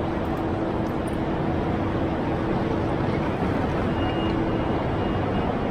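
Steady background din of a busy railway station train shed, with people moving about and trains at the platforms, and a faint steady hum that fades out about three and a half seconds in.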